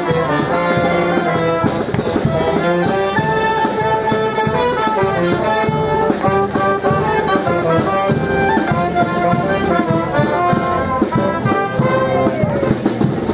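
Small street brass band playing a lively dance tune: trombone and other brass carry the melody over a steady drum beat, with a falling slide in pitch near the end.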